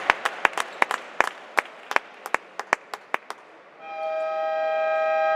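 Scattered hand claps from the crowd thinning out, then, about four seconds in, the arena's game horn sounds: a steady, buzzing electronic tone held without a break.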